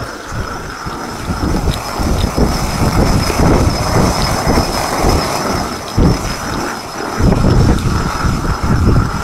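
Hand-turned stone quern grinding wheat grain: a rough, low grinding rumble from the upper stone rubbing over the lower one, surging unevenly with each turn and growing louder after the first couple of seconds.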